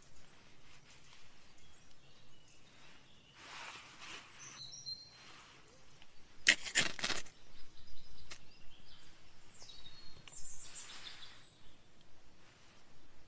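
A ferrocerium rod scraped hard several times in quick succession about halfway through, a short harsh rasp that throws sparks onto wood shavings and lights them. Small birds chirp a few high notes before and after.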